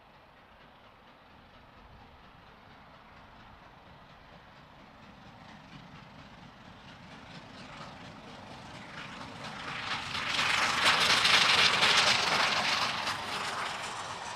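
LNER A4 Pacific three-cylinder steam locomotive No. 4498 hauling a train, growing steadily louder as it approaches under steam and peaking as it passes about eleven seconds in, then the coaches rolling by as the sound eases off.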